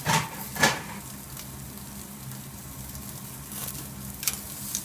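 Steak sizzling on the grate of a commercial charcoal grill, fat dripping onto the glowing coals and flaring, with a steady hiss. Two sharp snaps in the first second and a smaller one about four seconds in.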